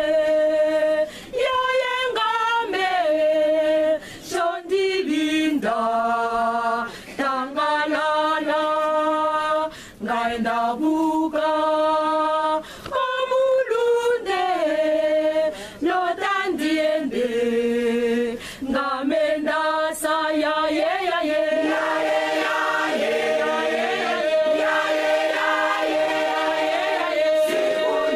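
A large choir, mostly women's voices, singing unaccompanied in harmony. The song moves in short phrases with brief breath pauses, then settles into one long held chord about three-quarters of the way through.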